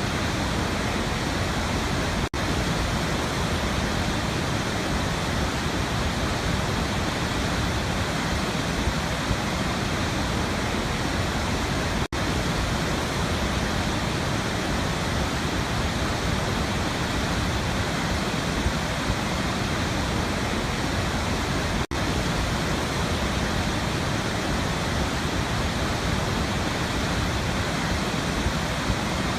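Waterfall rushing steadily, broken by three momentary drop-outs about ten seconds apart.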